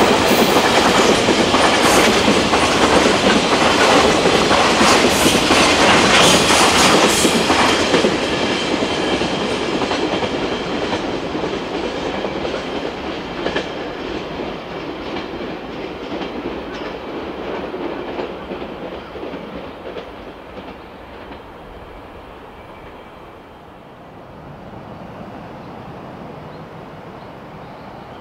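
Container freight train's wagons rolling past, the wheels clicking over rail joints; the last wagons go by about eight seconds in and the sound then fades steadily as the train draws away.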